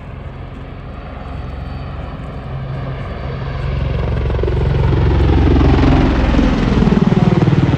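Super Puma Cougar helicopter flying past. Its rotor and turbine sound grows louder for several seconds and peaks near the end with a rapid blade beat, then drops in pitch as it goes by.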